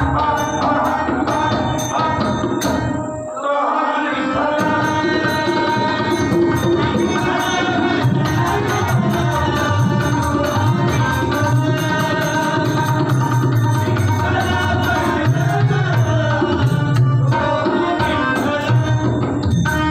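Marathi bhajan played live: harmonium with tabla and pakhavaj drumming, and a man singing over them. The drums drop out briefly a little over three seconds in, then carry on.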